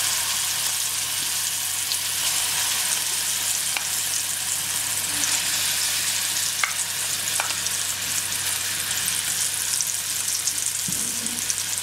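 Ground garlic, shallot and red chilli paste sizzling steadily in hot sesame oil in a kadai, with a few faint pops.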